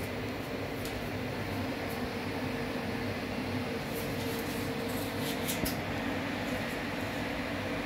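Many cooling fans on rows of heatsink units running together, a steady whirring hum with a few low droning tones. A few faint light ticks come in around the middle.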